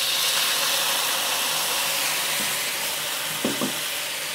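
Soy sauce sizzling and hissing as it hits hot oil with minced ginger and garlic in a wok, sending up steam. The hiss is steady and eases slightly toward the end.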